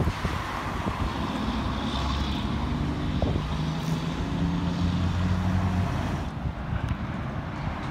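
Heavy semi-trailer truck's diesel engine pulling away with a steady low engine note, mixed with the tyre and engine noise of cars passing close by. The engine note and road noise fall away about six seconds in.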